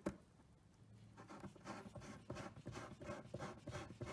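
Long steel assembly screw being turned by hand into a pre-drilled hole in a particleboard panel, its thread starting to bite. A click near the start, then from about a second in a quick, uneven run of short scrapes and creaks as the screw is twisted in.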